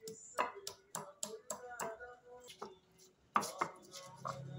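Stone pestle pounding and grinding chopped guava pieces in a flat stone mortar, with knocks of stone on stone about three a second. After a short pause a harder strike lands near the end.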